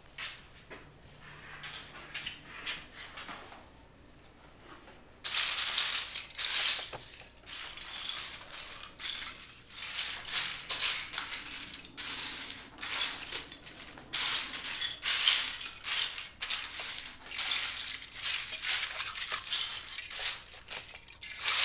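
Loose plastic Lego bricks rattling and clattering as a pile of them is rummaged through by hand, in repeated bursts. It starts faint and gets much louder about five seconds in.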